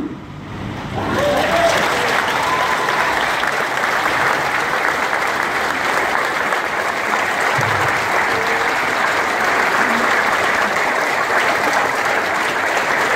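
A brief hush, then a large audience breaks into applause about a second in and keeps clapping steadily.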